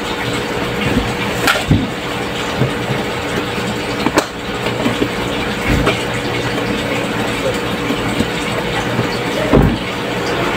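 Steady machine hum with a constant pitch running throughout, with a few sharp knocks, and the rustle of a vinyl seat cover being pulled over a seat frame.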